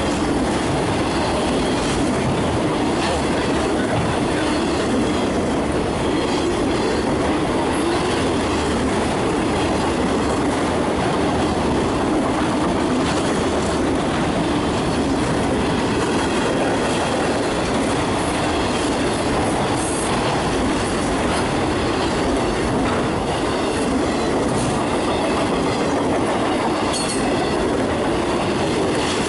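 Steady rumble and clatter of a freight train's autorack cars rolling past, steel wheels running on the rails.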